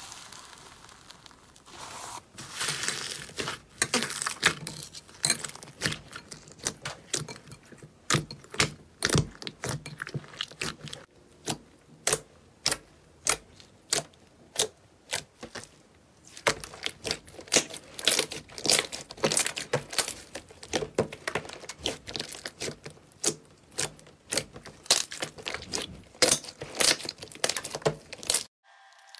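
Hands pressing, kneading and squeezing slime, giving a fast run of sharp pops and crackles as air pockets in the slime burst. It cuts off suddenly near the end.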